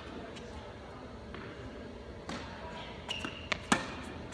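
Tennis ball hits and bounces on an indoor court: a few sharp, separate thwacks of racket on ball and ball on court, the loudest a racket strike near the end.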